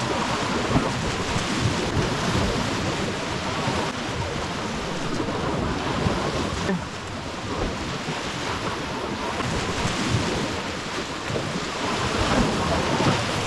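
Choppy lake water washing and splashing against shoreline rocks, with wind buffeting the microphone in a steady rush.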